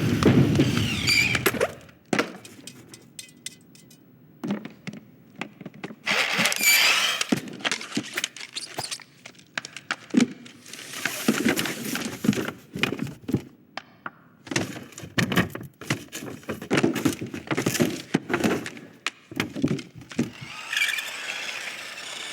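Animated-film sound effects with no dialogue or music: a run of Foley, with high squeals near the start, about a quarter of the way in and near the end, and many short clicks, taps and soft thumps in between.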